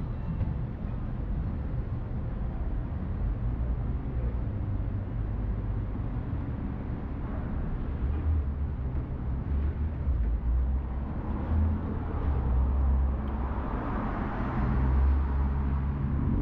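City street traffic: a steady low rumble of cars, with one vehicle passing closer near the end.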